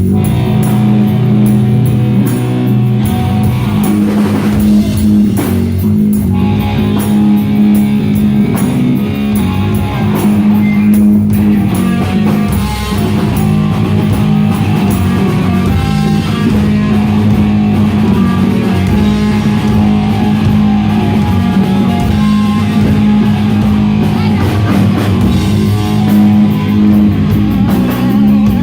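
Rock band playing live: guitar, bass and drum kit.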